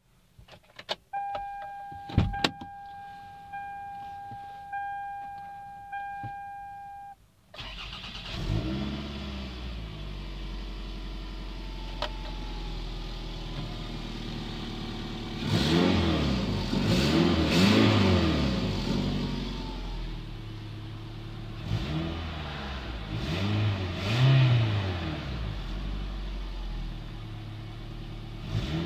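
A car's chime sounds steadily for several seconds among a few clicks. Then, about seven seconds in, a 2003 Toyota Highlander's 2.4-litre four-cylinder engine starts and idles, revved up and down twice in the second half. The engine has an exhaust leak.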